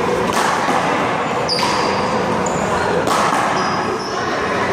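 Rubber handball being struck and bouncing off the wall and court during a one-wall handball rally: three sharp smacks over a steady background of people talking.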